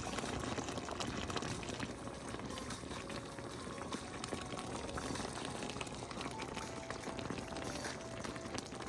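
Braising liquid bubbling at a steady simmer in a ceramic non-stick pan, a dense crackle of small bubbles.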